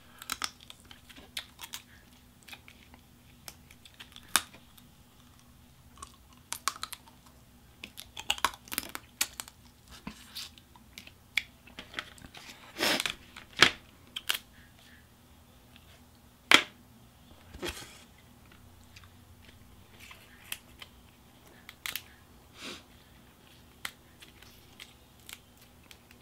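Boiled snow crab leg and crawfish shells being cracked and picked apart by hand, with chewing. Irregular sharp cracks and clicks, the loudest few about halfway through.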